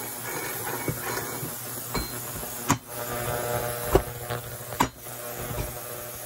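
Tools and metal parts knocked and clinked about while a cutoff saw is being taken apart: about six sharp knocks, the loudest three near the middle, over a steady low hum.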